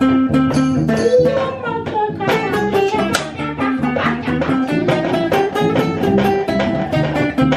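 Acoustic guitar and cello playing together in a loose, jazz-like jam.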